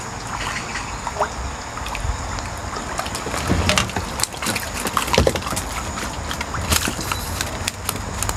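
Water splashing and sloshing as a hooked crucian carp thrashes at the surface and is scooped into a landing net, with scattered sharper splashes and knocks a little past the middle as the net is lifted out.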